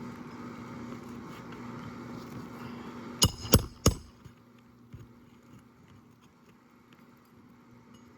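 Three quick, sharp, ringing strikes about three seconds in, a roofing nail being driven into a new asphalt shingle, over a low steady hum that fades out soon after.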